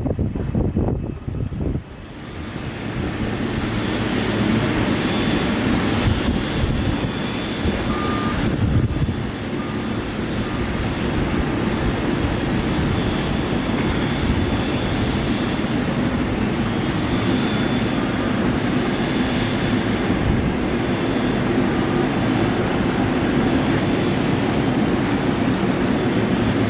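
Jet engines of a Boeing 777-200F freighter running steadily while it taxis: a continuous rumble with a faint high whine on top. The first couple of seconds hold an uneven, gusty rumble before the steady engine noise builds and settles.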